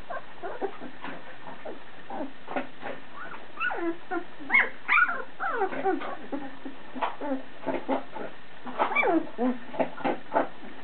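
Two-week-old Labrador puppies whimpering and squeaking in short rising and falling squeals, busiest about four to six seconds in and again near nine seconds. Under them runs a scatter of short crunching clicks from the mother dog eating.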